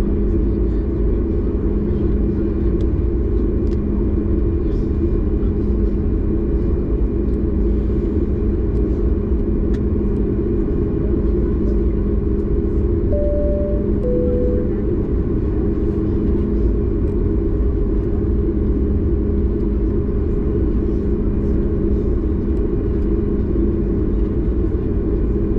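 Steady, even rumble and hum of a Boeing 737 MAX 8's CFM LEAP-1B engines and airflow, heard inside the passenger cabin. About halfway through, a two-note high-low cabin chime sounds once.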